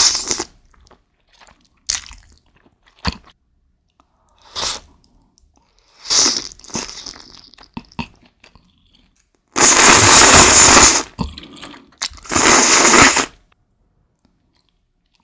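Close-miked eating sounds of spicy instant noodles and thin-sliced beef: several short, wet chewing and biting sounds, then two long, loud noodle slurps in the second half.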